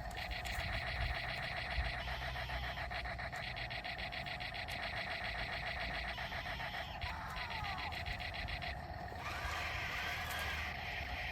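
Toy RC battle tank running: a rapid, even clicking over a steady whine, the clicking stopping about nine seconds in.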